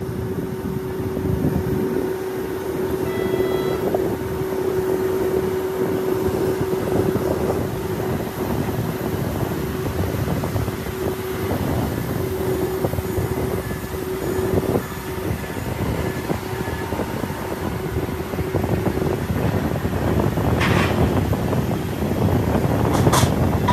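Steady running noise of ground machinery on an airport cargo ramp, with a constant hum through most of it and a few short sharp sounds near the end.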